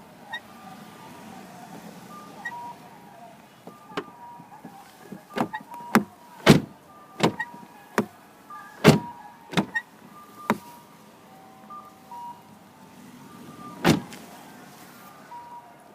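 Renault Lutecia 4 (Clio IV) driver's door being swung, its hinge and door check giving a series of clicks and clunks, the loudest in the middle, with short faint squeaks between them. This is the door-check squeak that comes on in sub-zero cold.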